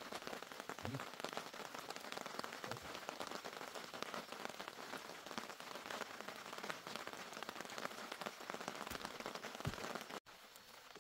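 Steady rain pattering, a dense hiss of many small drop ticks, with a few dull low thuds among it. It cuts off suddenly near the end.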